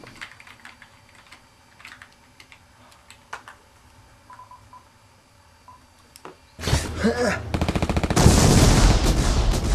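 A few short phone keypad beeps as a number is dialed. About two-thirds in, a loud, harsh burst of noise with a fast, even rattle takes over.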